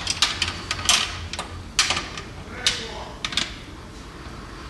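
A C5 Corvette's stock headlight assembly being handled and worked loose from its mount: irregular sharp clicks and knocks, most of them in the first two seconds, a last pair a little after three seconds in.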